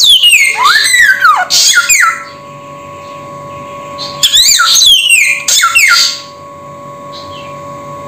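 Ruby-throated bulbul (samyong) singing: two bursts of quick whistled phrases about two seconds apart, with sweeping notes that mostly fall in pitch, over a steady faint hum.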